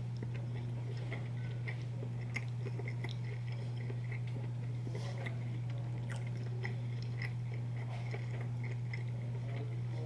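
A mouthful of sausage, egg and cheese English muffin being chewed, with many small wet clicks and crackles, over a steady low hum.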